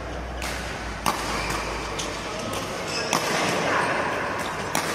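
Badminton rackets striking the shuttlecock in a doubles rally: several sharp hits, roughly a second apart or less.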